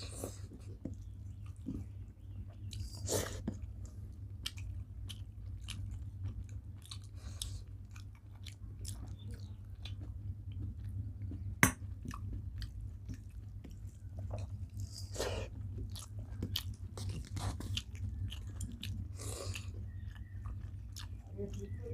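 Close-up eating sounds of rice and curry: steady chewing with wet mouth sounds and small irregular clicks. One sharp click a little past halfway is the loudest moment, and a steady low hum runs underneath.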